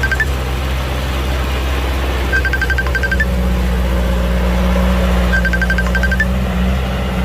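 Heavy diesel engine of a construction vehicle running steadily, with a short chiming tune of quick high beeps repeating about every three seconds, like a reversing alarm. The engine note thickens slightly from about three seconds in until near the end.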